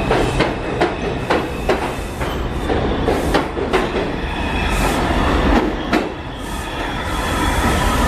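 R142 subway train running along the platform, its wheels clacking over the rail joints in sharp knocks about twice a second. Toward the end the clacking gives way to a steadier rumble with a thin wheel squeal.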